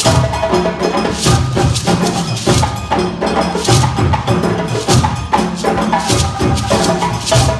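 An ensemble of djembes and other African drums playing an interlocking rhythm together. Deep drum tones sit under a sharp clicking part, and the pattern repeats about every second and a quarter.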